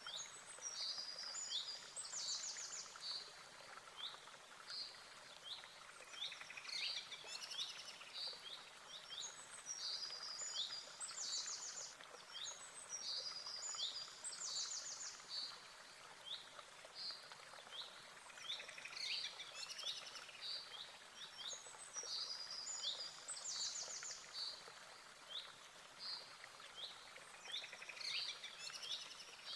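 Birdsong: small birds chirping and giving short rapid trills, high-pitched, over a faint steady hiss. The same run of calls comes back about every nine seconds.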